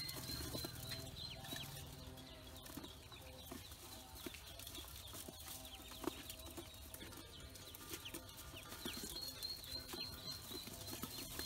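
A brood of ducklings peeping, many short, high, falling peeps overlapping one another without a break.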